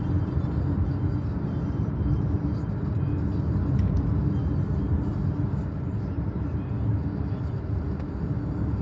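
Steady road noise of a car driving at speed, with engine and tyre rumble heard from inside the cabin.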